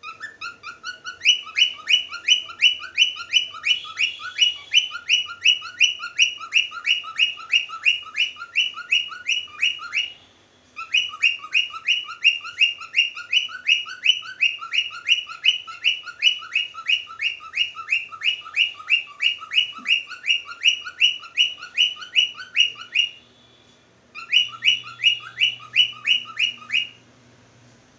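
Cockatiel chirping: a long run of quick rising chirps, about three a second, in three bouts with short breaks about ten seconds in and again near the end.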